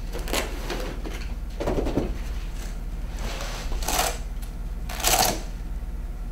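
A Kendrick extrication device (KED) being picked up and unfolded, its panels and straps rustling and clattering in four short bursts, loudest near the end.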